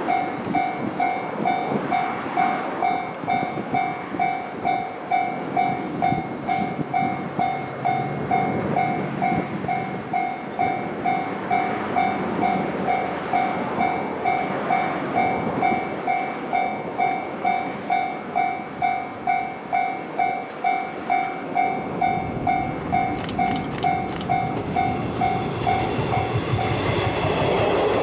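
Railway level-crossing warning bell ringing in a steady, even pulse about one and a half times a second, stopping near the end. As it stops, a JR Kyushu 415 series electric train passes close by and its running noise swells.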